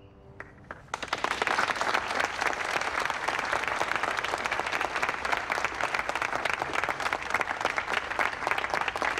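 A single clap, then about a second in a large crowd breaks into steady applause.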